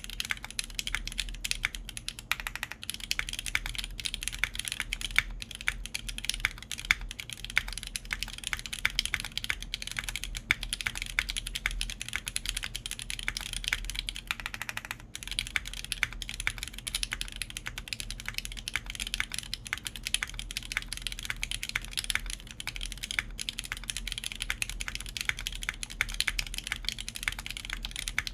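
Continuous fast typing on a Tech Bear TB-65F 65% mechanical keyboard in its spring capsule mount, with a full copper plate, GMK Cosmos keycaps and lubed JWK Alpaca linear switches. It makes a dense run of clacky keystrokes, with a brief pause about halfway through.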